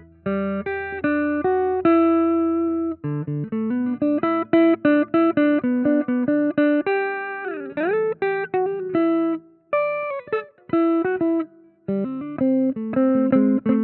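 Clean electric guitar, a Chibson Gold Top copy, playing lead phrases of picked single notes and short chords. A string is bent up and down in pitch about halfway through, and the playing stops briefly near the end before starting again.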